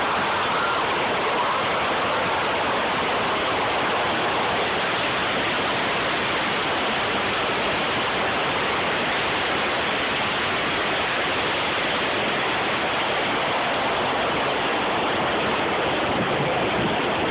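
Special-effects flood water rushing and splashing in a steady torrent, the flash-flood stage of a simulated earthquake.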